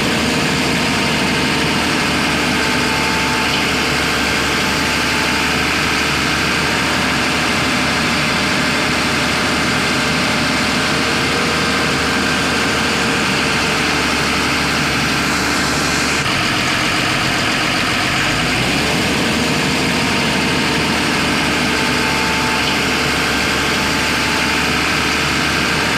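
Diesel engine of a JCB 3DX backhoe loader running steadily, its low rumble shifting abruptly twice past the middle.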